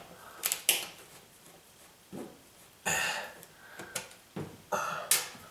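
Scattered sharp clicks and short scrapes of an electrical outlet's cover plate being unscrewed and handled.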